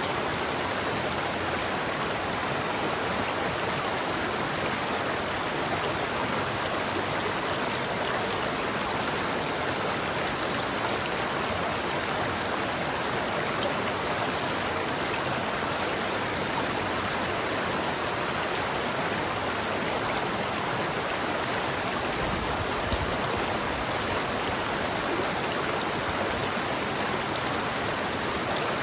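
River water flowing steadily over rocks, a continuous even rushing.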